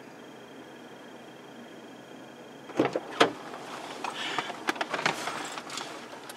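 Quiet steady hiss, then about three seconds in two sharp knocks close together, followed by a run of clicks and rustling, like handling or a door or window mechanism inside a car.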